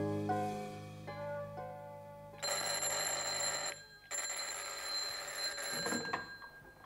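A brass musical interlude fading out, then a telephone bell ringing twice: a ring of about a second, a short break, and a longer ring of about two seconds.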